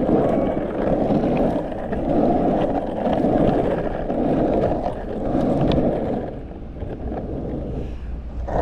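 Surf skateboard wheels rumbling over the concrete rollers of a pump track. The rolling noise swells and fades about once a second as the board pumps through the bumps, then eases off near the end.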